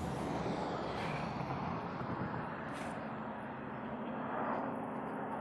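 Steady outdoor rumble of distant vehicle traffic, with one brief click about three seconds in.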